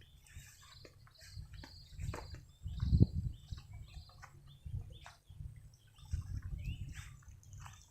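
Small birds chirping in many short, scattered calls over a low rumble, with a couple of dull thumps about two and three seconds in.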